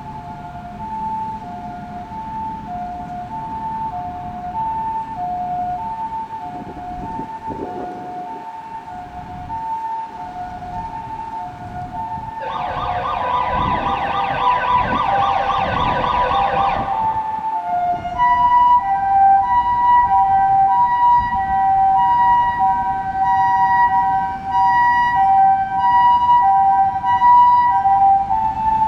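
Japanese ambulance electronic siren on a Nissan Paramedic sounding the alternating two-tone hi-lo call. About twelve seconds in it switches to a fast yelp for about five seconds, then returns to the two-tone, louder than before, over low road noise.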